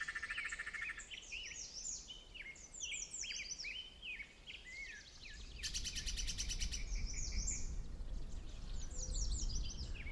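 Woodland birdsong: many short, quick, downward-sliding chirps and whistles from several birds. A rapid buzzing trill sounds at the start and again about six seconds in, over a low rumble that sets in about halfway through.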